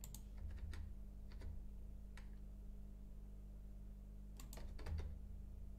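Faint computer keyboard and mouse clicks: a few single taps and a quick cluster of several about four and a half seconds in, over a low steady electrical hum.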